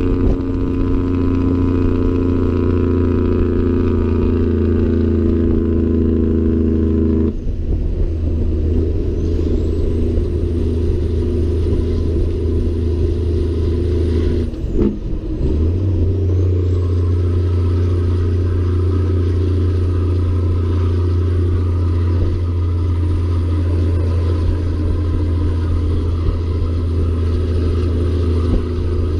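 Caterpillar 3406E straight-six diesel of a Peterbilt 379 pulling a heavy load along the highway, heard from the hauled load behind it. The steady engine note breaks off twice for gear shifts, about seven and fifteen seconds in, and a high whistle rises back up after each.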